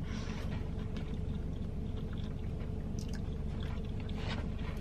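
A person chewing a mouthful of chicken sandwich, with faint wet mouth clicks and smacks over a steady low background hum.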